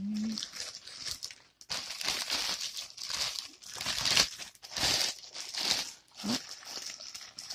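Plastic poly mailer bag being torn open and crinkled by hand, in irregular bursts of rustling and ripping with a short pause about a second and a half in.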